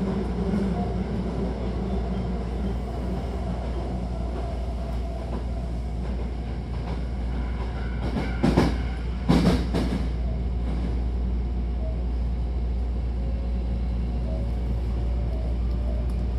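Hankyu Takarazuka Line train running, heard inside the car: a steady rumble with a faint motor hum. Two loud sharp knocks about a second apart come roughly halfway through.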